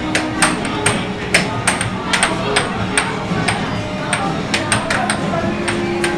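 Air hockey puck being struck by the mallets and banging off the rails of an air hockey table: sharp, irregular plastic clacks, a few a second, sometimes in quick pairs.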